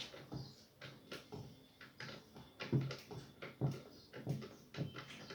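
Irregular clicks, knocks and scrapes of hands and tools working on a Logitech Z313 subwoofer's cabinet, taking it apart; some knocks land as hollow thuds on the enclosure.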